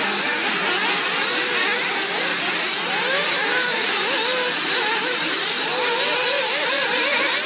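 Several nitro-powered RC off-road cars' small glow-fuel engines racing, each revving up and backing off so that their high, buzzing pitches rise and fall over one another without a break.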